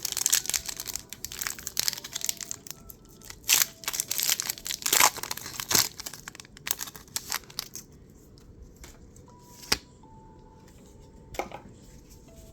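A Pokémon booster pack's foil wrapper being torn open and crinkled, with sharp rustling crackles through the first half. It then goes quieter, with a single click near the end.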